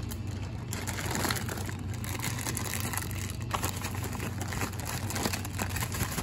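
Plastic bag crinkling and rustling as it is shaken to coat pieces of bluefish in breading mix, an irregular stream of crackles.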